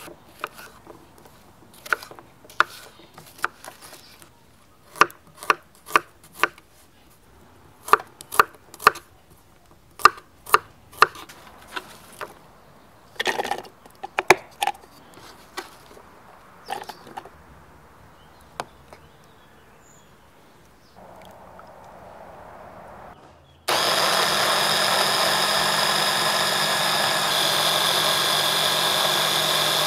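A kitchen knife chops bell pepper on a wooden cutting board: sharp, irregular knocks of the blade against the board. Near the end an electric mini chopper runs steadily and loudly for about six seconds, puréeing the pepper, onion and garlic.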